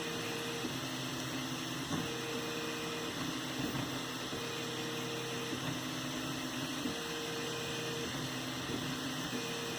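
3D printer printing: its stepper motors whine in steady tones that switch on, off and change pitch every second or two as the head moves, over a steady hiss.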